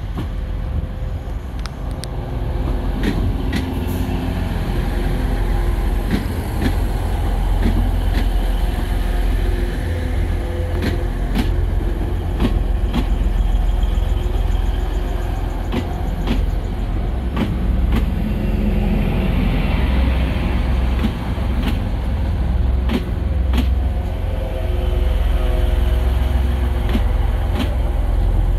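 Diesel train engine running with a steady, heavy low rumble, with scattered clicks and knocks over it.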